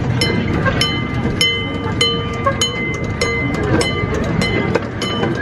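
Railroad crossing signal bell ringing in evenly spaced strokes, about two a second, each stroke ringing on. Underneath is the steady rumble of the miniature train rolling on its track.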